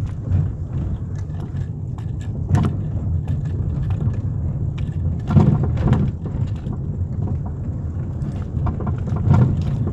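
Chevrolet Lacetti driving with a steady low road rumble, broken by a few sharp knocks from the front suspension, the loudest pair near the middle. The knock has an unknown cause: the stabilizer links, ball joints and tie rods are already new.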